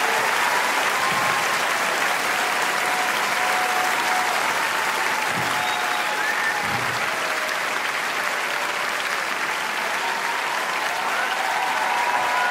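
Large theatre audience applauding steadily, with scattered cheers and whistles rising above the clapping.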